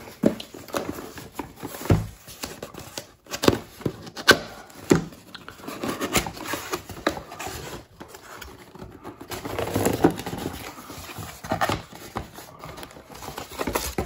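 Hands opening a cardboard box: irregular scrapes, taps and rustling as the cardboard flaps are folded back and the paper sheet inside is handled.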